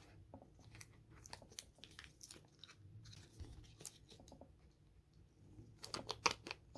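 Plastic packaging crackling and clicking as a pair of circlip pliers is worked out of it, in scattered small crackles with a louder cluster about six seconds in.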